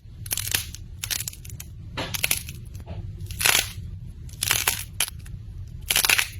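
Crunchy slime being squeezed and pressed by hand, giving an uneven run of crackling crunches, about one or two a second, the loudest about halfway through and near the end.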